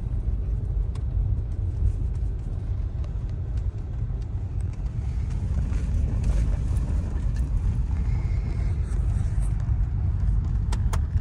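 Steady low rumble of a vehicle driving on a snow-covered road, heard from inside the cabin: engine and tyre noise at an even cruising speed.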